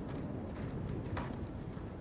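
Hailstones and heavy rain hitting hard surfaces, with scattered sharp ticks over a steady hiss, while the low rumble of thunder slowly fades.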